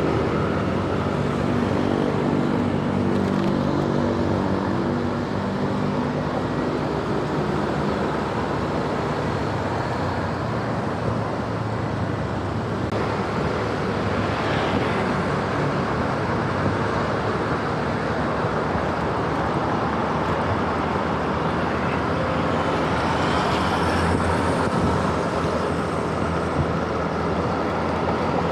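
A motor vehicle running steadily: a constant rush of engine and road noise with a low, even engine hum.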